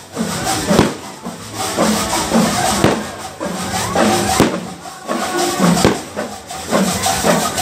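Loud music with a singing voice and shaker-like percussion, cut through a few times by sharp cracks of fireworks bursting.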